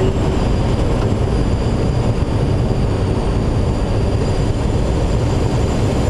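Steady rush of air flowing around the cockpit and canopy of a Schweizer 2-33A glider in flight, with faint high steady whistles over it and no engine.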